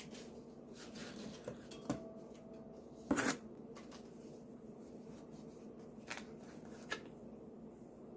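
Paper packaging rustling and crinkling as a small item is unwrapped by hand, in scattered short crackles with a louder crinkle about three seconds in.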